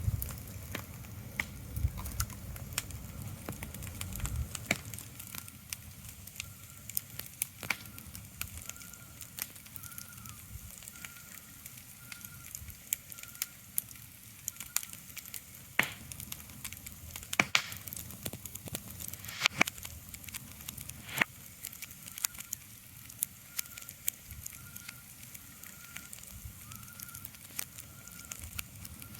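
Irregular crackling and snapping clicks over a steady soft hiss, with a faint high tone pulsing about once a second behind it.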